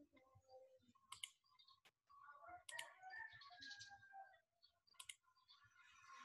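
A few faint, sharp computer mouse clicks, about four or five, spread over near silence.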